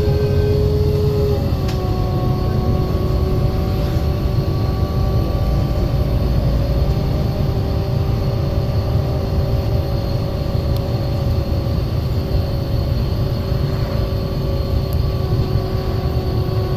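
Menarinibus Citymood 12 CNG city bus under way: its FPT Cursor 9 natural-gas straight-six and ZF Ecolife automatic gearbox run with a deep road rumble and steady drivetrain whine. About a second and a half in, the whine steps slightly lower in pitch.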